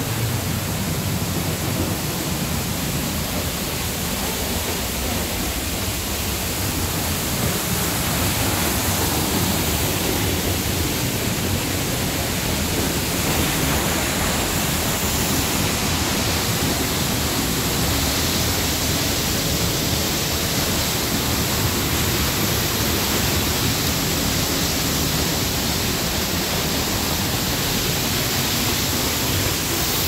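A waterfall heard from right behind its falling curtain of water: a steady, dense rush of water crashing down, unbroken throughout.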